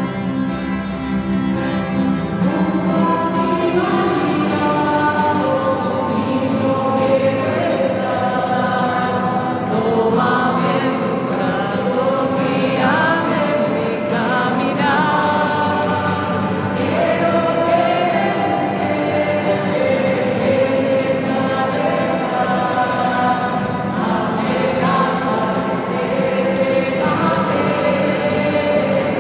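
Choir singing a hymn in long held notes.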